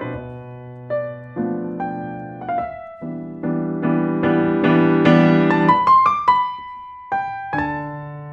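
Background music: a slow piano piece playing chords and a melody, with notes ringing out and changing every second or so.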